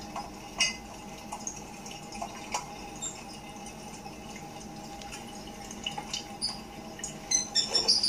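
Pet lovebirds chirping: scattered short, high peeps and clicks, with a quick run of louder chirps near the end, over a faint steady hum.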